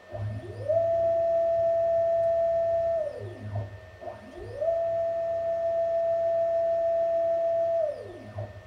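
BF30 Super mill's CNC axis motors driving an axis through two moves: each a whine that rises in pitch as the motor speeds up, holds at one steady pitch for a few seconds, then falls as it slows to a stop, over a low hum.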